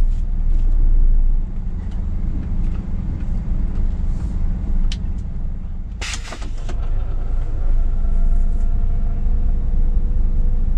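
Scania S500 truck's V8 diesel running at low speed, heard from inside the cab as a steady low rumble. A short, sharp hiss comes about six seconds in.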